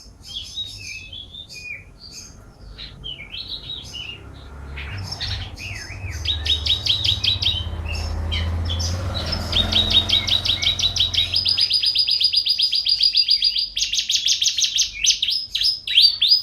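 Domestic canary singing: varied twittering at first, then long fast trills of rapidly repeated notes that grow louder, with an even rolling trill near the end followed by quick falling notes. A low rumble runs under the song for several seconds midway.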